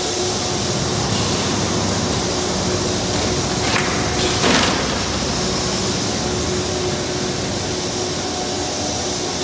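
A PC/ABS plastic sheet extrusion line running: a steady, loud machine noise with a faint low hum. About four and a half seconds in, a brief hiss stands out.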